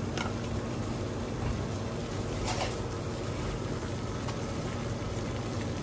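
Water at a rolling boil in a stainless steel saucepan on a gas burner: a steady bubbling hiss.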